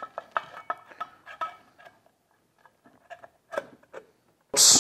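Metal motor cover being fitted onto a pump motor: a run of light metallic clinks and taps that ring briefly, thinning out to a few faint ticks. A short loud hiss comes right at the end.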